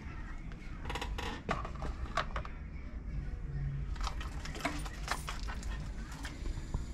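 Scattered light clinks and jingles of small hard objects, in clusters about a second in, around two seconds and again between four and six seconds, over a steady low hum.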